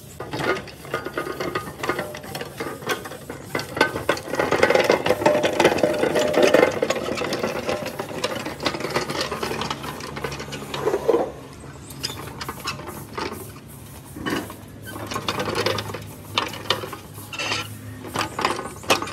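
Hand tools working on metal tractor parts, with rapid, irregular clicking and rattling. The clatter is densest about a third of the way in and thins out later.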